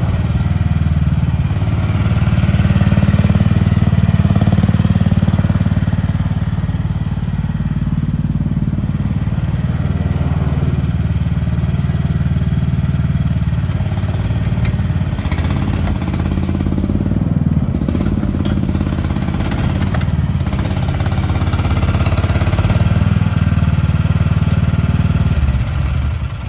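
Mini excavator engine running steadily through a working demo, getting louder for a few seconds near the start, with a few knocks and clatter partway through. The engine note drops away at the very end as it is shut off.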